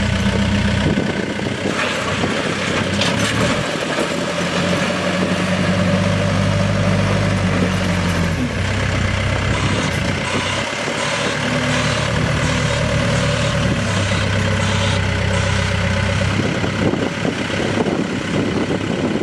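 Diesel engine of a 2011 Case 580N loader backhoe running steadily, its low hum shifting in tone several times.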